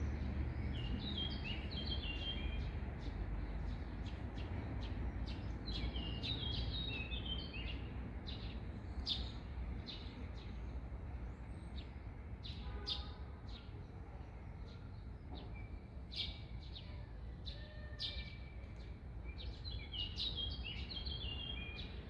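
Small songbirds chirping in quick runs of short high notes, over a steady low background rumble.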